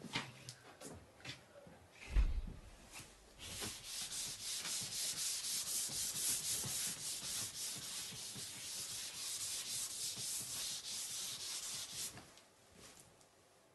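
Blackboard eraser rubbing across a chalkboard in rapid back-and-forth strokes for about eight seconds, starting about three and a half seconds in and stopping near the end. Before it, a click and a louder low thump about two seconds in.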